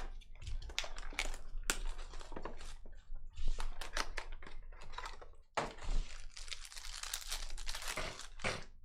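Trading-card pack wrapper crinkling and tearing open, with a rapid run of small clicks and snaps as the cards inside are handled. The crackling is densest about halfway through and again near the end.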